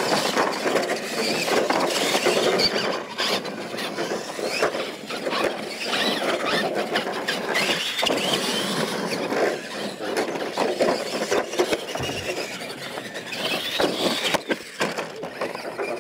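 Radio-controlled monster trucks racing on dirt. Their electric motors and gear drives whine, rising and falling in pitch as the trucks accelerate and let off, with repeated sharp knocks and clatter from jumps, landings and crashes.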